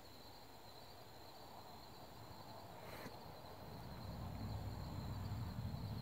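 Faint outdoor ambience with a steady high-pitched insect drone; a low rumble builds up in the second half.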